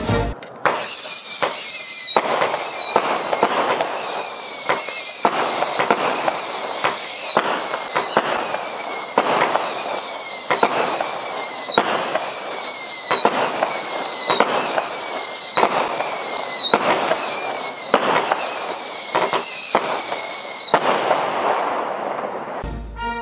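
A 200-gram consumer fireworks cake firing its 19 whistle shots in quick succession, about one a second. Each shot is a sharp report followed by a shrill whistle that drops slightly in pitch. The last whistle fades out near the end.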